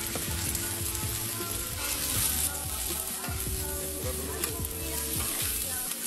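Sliced celery and onion sizzling on a hot Blackstone flat-top griddle, with a metal spatula scraping and turning them across the steel.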